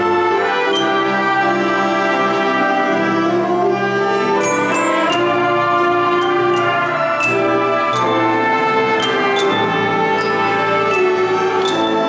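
A community orchestra of strings, brass and percussion playing held chords, with high bell-like strikes ringing over them one or two times a second.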